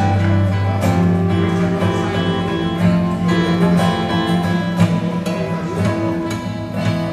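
Acoustic guitars, nylon-string and steel-string, played together in a jam, picked and strummed over held chords.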